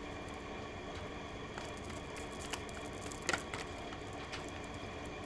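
Oracle or tarot cards being handled on a table: a few light taps and flicks, the clearest about three seconds in, over a steady low room hum.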